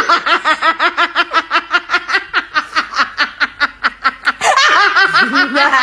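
High-pitched snickering laughter: a rapid, even string of short 'he-he-he' pulses, about six or seven a second, starting a fresh run about four and a half seconds in.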